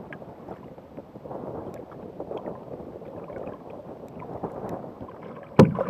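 Choppy sea water sloshing and gurgling against the hull of a Jackson Cuda 14 sit-on-top fishing kayak, with wind on the microphone. There is one loud sudden thump about five and a half seconds in.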